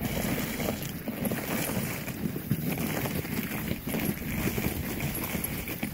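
Small sled dog team running on a packed snowy trail: quick, irregular footfalls crunching in the snow over the steady hiss of the sled moving along.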